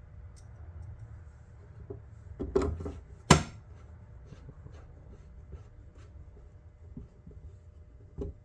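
Plastic case parts of an electronic race timer being handled and fitted back together: scattered light clicks and rubbing, a short run of knocks about two and a half seconds in, a single sharp click just after, and another knock near the end.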